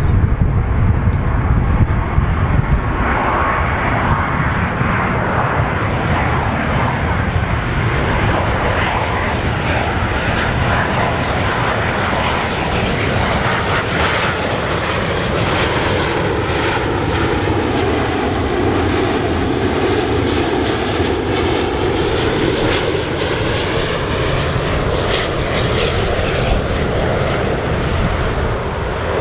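Airliner on final approach passing low overhead to land, its engines running as a loud, steady rush with a whooshing sweep as it goes over.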